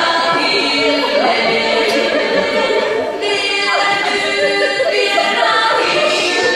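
A small group of women's voices singing together in harmony, with long held notes that change every second or so.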